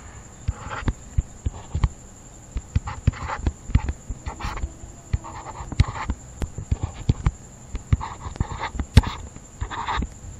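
Irregular clicks and taps from handwriting input on a computer while digits are written on screen, mixed with short breathy hisses, over a steady high-pitched electrical whine.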